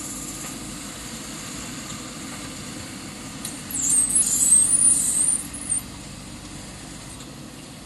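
JCB 3DX backhoe loader's diesel engine running steadily. A loud, high-pitched squeal wavers in pitch for about two seconds midway.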